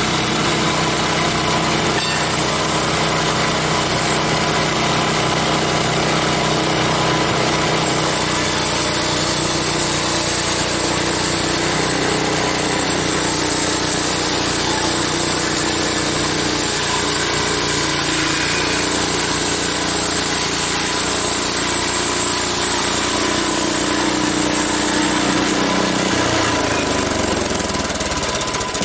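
Portable sawmill at work: its engine runs steadily at high speed while the blade is pushed through a log, cutting a board. The low part of the engine sound shifts near the end.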